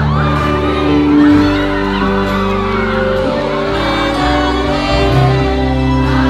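Live pop band music played through a concert PA, with a crowd's voices shouting and cheering over it.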